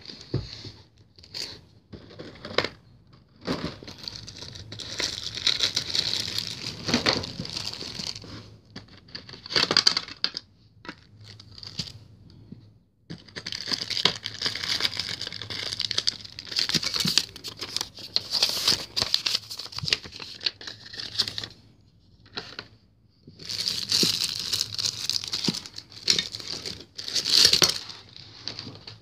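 Clear plastic wrapping and a plastic packaging tray crinkling and rustling in irregular bursts as a model airliner is unwrapped by hand, with a couple of short pauses in between.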